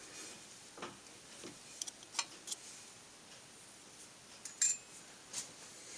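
Scattered light clicks and clinks of small metal tools and drill bits being handled on a workbench, the loudest about three quarters of the way through with a brief high ring.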